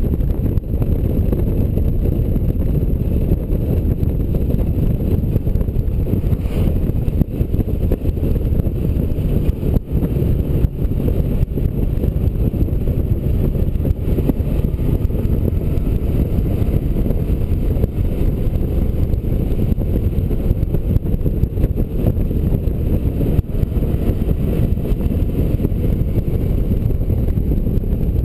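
Honda Gold Wing motorcycle riding at steady road speed: a constant low rush of wind buffeting the on-bike microphone, with the engine and road noise blended into it.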